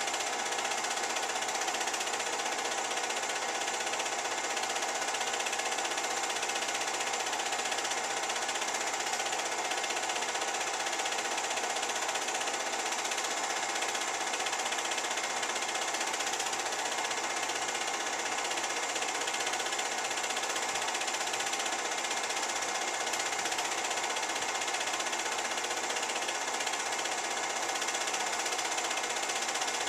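Film projector running steadily: a continuous mechanical clatter of the film-advance mechanism with a motor hum.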